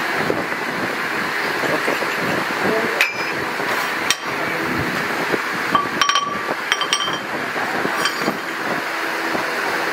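Steel parts clinking and knocking against one another and the lathe as they are handled: a few sharp metallic clinks, some with a short ring, most of them between about six and eight seconds in, over a steady workshop background noise.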